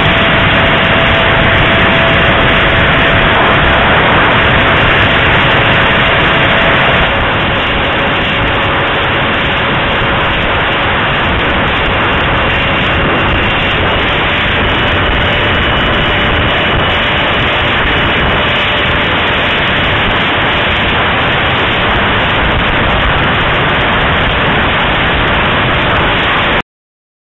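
Loud rush of wind over a small keychain camera's microphone on the wing of an RC jet in flight, with a faint steady whine from its 64 mm electric ducted fan. The noise drops slightly about seven seconds in and cuts off abruptly just before the end.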